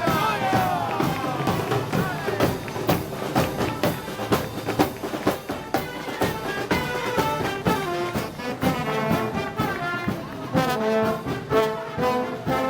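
Brass band with drums playing Moros y Cristianos festival music: trombones and trumpets over a steady drumbeat, with sliding brass notes near the start.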